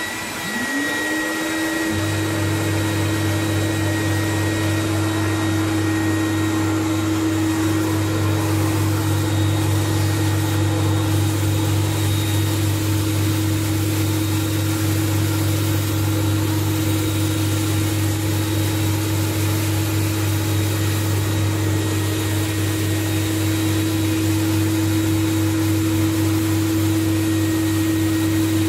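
PowrFlite PFX1350 hot water carpet extractor switched on. The whine of its vacuum motors rises as they spin up, a deeper hum joins about two seconds in, and then the machine runs steadily.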